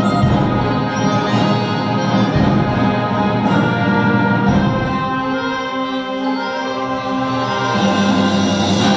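A school woodwind ensemble, joined by some brass such as trombones, plays sustained chords in a live concert arrangement, heard from the audience. A little past halfway the low instruments drop out, leaving a held middle note, and they come back in near the end.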